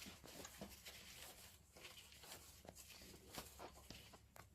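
Near silence: faint background hiss with a few scattered small ticks.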